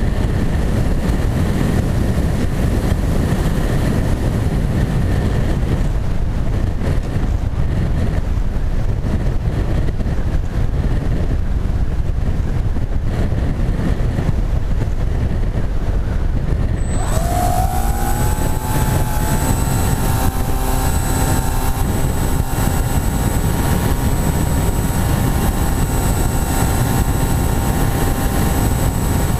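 Wind rushing over the model aircraft's onboard camera microphone while it glides. A little over halfway, the flying wing's electric motor and propeller spin up with a quickly rising whine that settles into a steady tone, running on under the wind noise.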